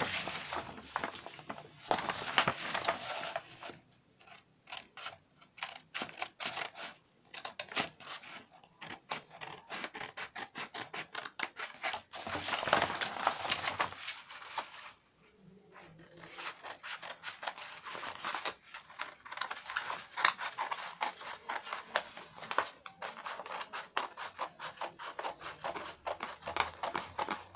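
Scissors cutting through brown paper pattern pieces: rapid snipping with the paper rustling, broken by a few short pauses.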